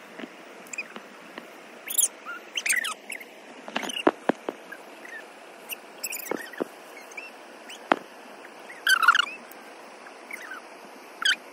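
Leaves and branches of a chutra (barberry) bush rustling, with irregular sharp snaps and cracks of twigs, as hands push through it picking berries.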